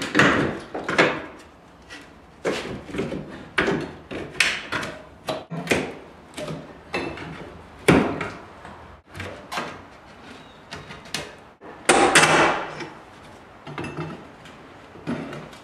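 Flat pry bar levering wooden door casing off the jamb: irregular knocks, taps and creaks of metal on wood as the trim is worked loose, with louder knocks near the start and about two thirds of the way in.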